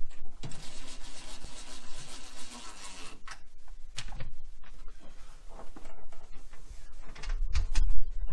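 Cordless screwdriver running for about two and a half seconds as it drives a screw into the tankless water heater's front cover. This is followed by a few knocks from handling the cover and a heavier low thump near the end.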